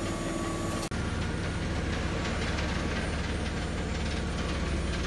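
An engine idles steadily, a low drone with a fast even pulse. There is a brief dropout about a second in, after which the drone comes back slightly louder.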